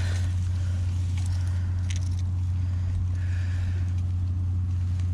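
A steady low drone, with faint rustles and small clicks over it.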